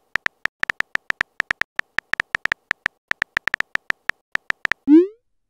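Keyboard typing sound effect from a texting-story app: rapid, irregular short ticks, one per letter as a message is typed. Near the end a short rising swoop sounds, the app's message-sent effect.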